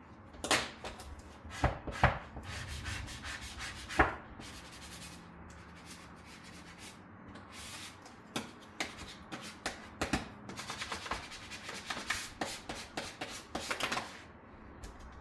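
Rubbing and scraping on 3M adhesive film stuck to an MDF board, with its backing liner being peeled away. There are a few sharp knocks in the first few seconds, then a quick run of short scraping strokes near the end.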